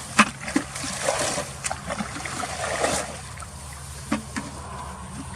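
Water splashing and sloshing with a few sharp knocks, busiest in the first three seconds and quieter after, over a steady low hum.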